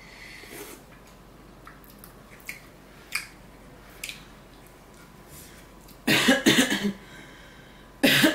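A woman sips hot, spicy noodle broth with a light slurp, then coughs in a short burst of several coughs about six seconds in and once more at the end, set off by the spice.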